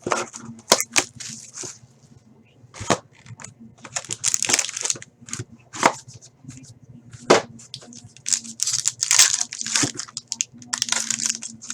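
Packaging being torn and crinkled while trading cards are handled, in irregular rustling bursts with several sharp clicks.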